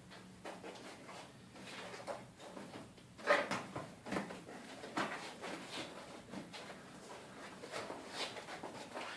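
Rubber tire being worked by hand over the edge of a drift-trike rim: irregular rubbing and scraping strokes as the bead is pushed on, the loudest a little over three seconds in.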